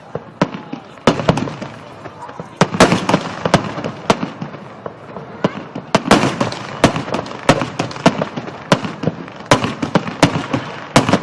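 Fireworks display: aerial shells bursting in an irregular series of sharp bangs, with crackling between them.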